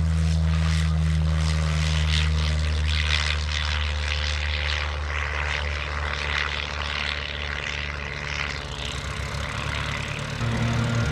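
Pitts aerobatic biplane's piston engine and propeller running at full power as it lifts off the runway and climbs away. The steady drone slowly fades as the plane draws off.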